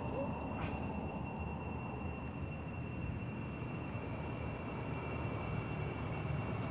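Steady low rumble of outdoor background noise, with a faint, steady high-pitched whine over it and one faint click about a second in.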